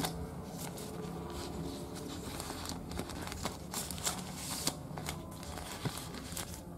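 Cardboard and paper packaging of a smartphone box being handled: light rustling with small clicks and taps, busiest about halfway through.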